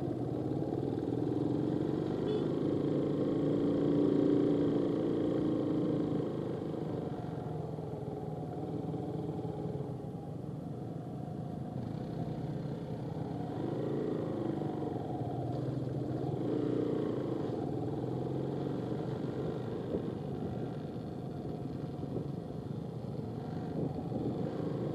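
Small motorcycle engine running at low speed, its note rising and falling several times as the throttle is eased on and off.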